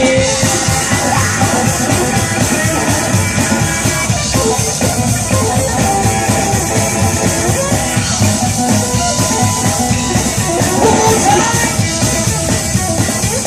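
Live rockabilly/psychobilly band playing an instrumental stretch: driving drum kit and electric guitar, loud and steady throughout.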